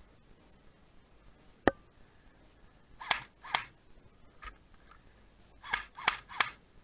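Airsoft guns firing: a single sharp click, then quick shots in a pair and a group of three, each about a third of a second apart.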